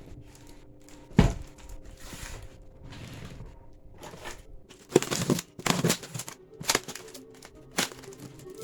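Sharp knocks and rustling handling noises, the loudest knock about a second in and a cluster of knocks in the second half, over quiet background music.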